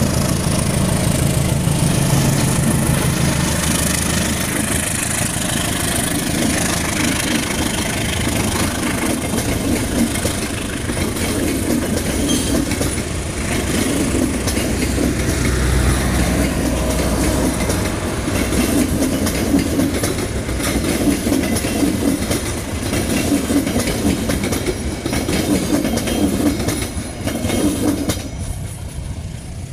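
CC201-class diesel-electric locomotive passing close with its engine running, followed by a long rake of passenger coaches rolling by, their wheels clattering in a steady clickety-clack over the rail joints. The sound drops away near the end as the last coach passes.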